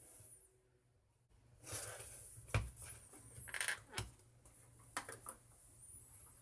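Faint handling of a plastic bread-stamping mold on sliced white bread over a wooden cutting board: soft rustles and a few light plastic clicks and knocks as it is pressed down and lifted off. The sharpest knock comes about two and a half seconds in.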